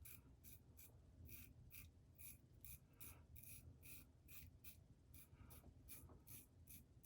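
Double-edge safety razor taking short, quick strokes through lathered stubble, a faint rhythmic scraping at about three strokes a second.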